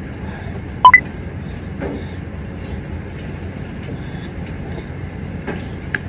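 Steady low rumble of room noise in a ramen shop, with one sharp ringing clink of tableware about a second in and a few small clicks near the end.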